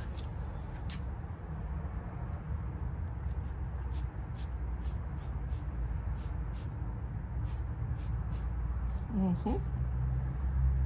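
Crickets trilling steadily on one high note, with a low rumble underneath. Short hissing puffs from a small pump-spray bottle of fart spray come again and again.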